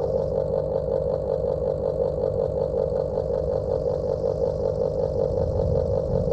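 Old electric house fan running steadily, with a buzzing hum and a fast, even pulsing flutter.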